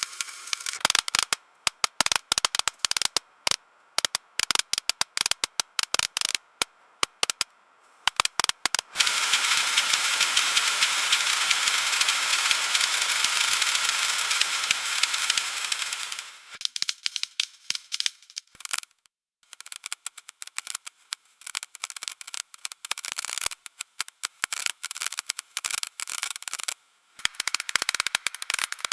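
Ice-glazed tree branches crackling and snapping in freezing rain: many sharp, high cracks and ticks in irregular flurries. From about nine seconds in they merge into a dense, steady crackling hiss for about seven seconds, then thin out to scattered cracks again.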